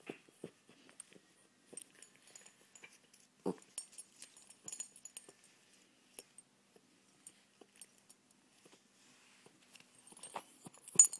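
Faint rustling and scattered small clicks from a hand stroking a poodle's fur right against the phone's microphone, with a sharp click just before the end.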